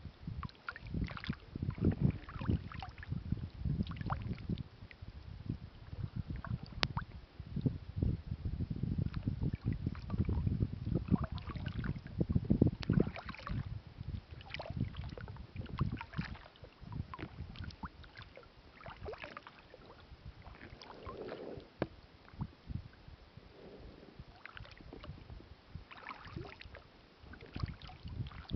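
Kayak being paddled: irregular splashing and dripping of the paddle blades in the water over a low rumble, quieter for the last third.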